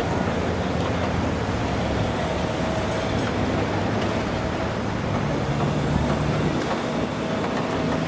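Steady wash of ocean surf and wind with the low hum of an engine running underneath; the engine's pitch shifts about five seconds in.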